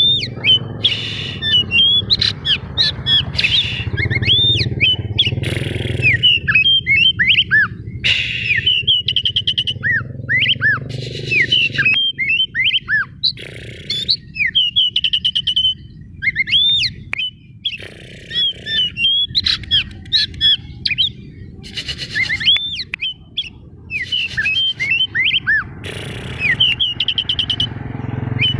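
Oriental magpie-robin (white-breasted 'kacer daput' form) singing hard: quick runs of short, sharp, slurred whistles and chattering notes, in bursts broken by brief pauses.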